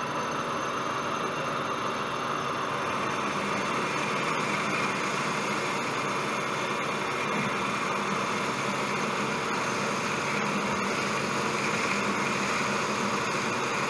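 Metal lathe running steadily while a boring bar cuts a step inside a bore in 1018 steel: an even hiss of the cut over the steady hum of the lathe's motor and gearing.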